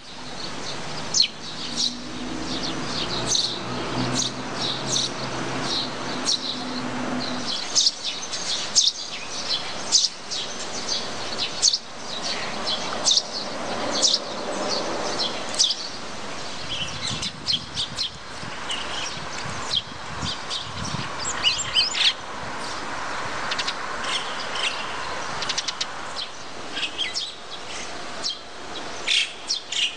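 Many small birds chirping and calling over steady outdoor background noise, with a low steady hum in the first seven seconds or so.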